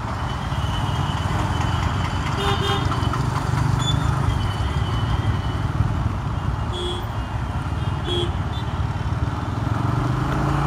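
TVS Apache RTR 180's single-cylinder engine running steadily at low speed in traffic, heard from the saddle with wind and road noise. A few brief high tones sound over it.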